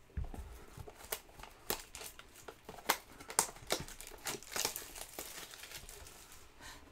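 Clear plastic shrink wrap being torn off a box of trading cards and crumpled in the hand, with a steady run of irregular sharp crackles and rustles.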